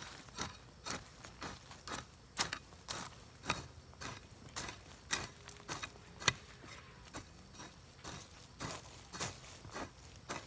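A series of sharp taps or knocks, about two a second and slightly irregular.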